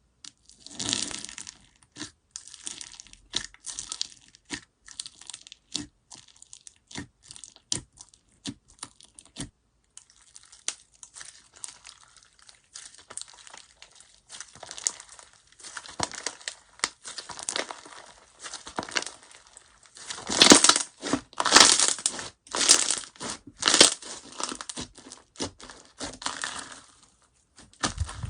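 Slime being squeezed and poked by hand: a string of sharp, separate clicks and pops, giving way to denser crackling with several louder squishing bursts about two-thirds of the way through.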